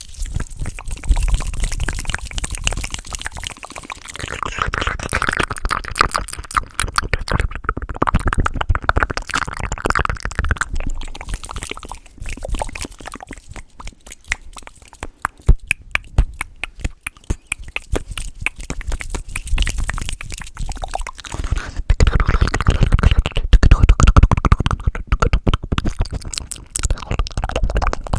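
Fast, close-miked ASMR mouth sounds: wet tongue clicks and lip smacks in quick succession, with a run of rapid clicks in the middle.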